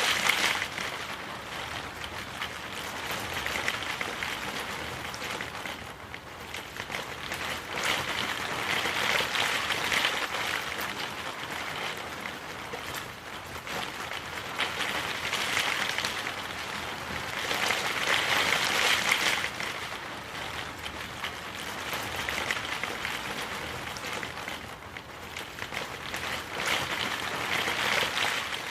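Rain falling steadily, a dense patter that swells and eases every few seconds.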